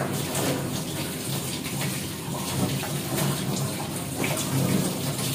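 Water running steadily from a kitchen tap into a stainless steel sink, splashing as something is rinsed under it.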